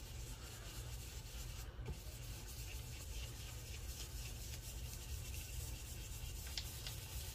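Soft, steady rubbing of an ink blending brush worked in circles over a paper tag.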